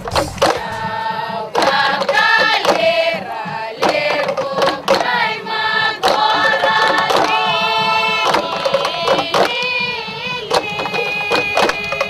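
A group of women singing together, several voices on the same bending melody, with sharp percussive beats throughout.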